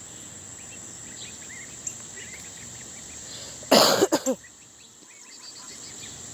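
Insects trilling steadily in a high thin tone, with faint bird chirps, broken about four seconds in by one short, loud, harsh sound.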